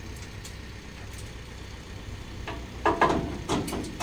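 Escorts F15 crane's diesel engine running steadily at a low hum. From about two and a half seconds in, a run of loud, sharp sounds cuts in over it, loudest just before three seconds and again around three and a half.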